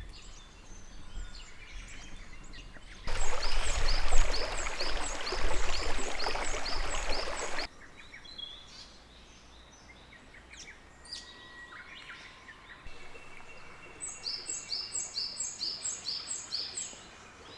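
Wild birds singing: one bird twice repeats a quick series of high, sharp notes, about three a second, with scattered calls from other birds in between. A loud rushing hiss comes in about three seconds in and stops abruptly some four seconds later.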